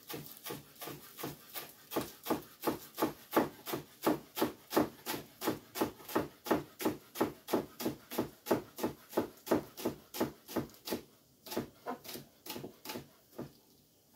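Chef's knife chopping green onions on a wooden cutting board, a steady run of about three cuts a second that grows fainter and sparser near the end.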